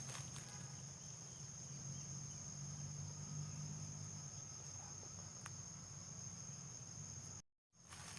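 Insects droning in one steady, high-pitched chorus, with a low steady hum underneath. Both cut out abruptly for a moment near the end.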